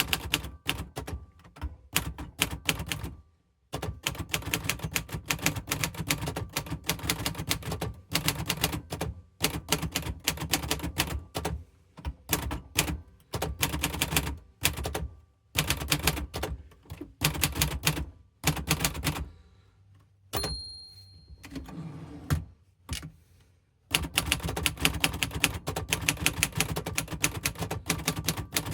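Imperial Good Companion 5 manual portable typewriter being typed on in fast runs of sharp key strikes, with short pauses between lines. About two-thirds of the way through the typing stops for a few seconds and the margin bell rings once.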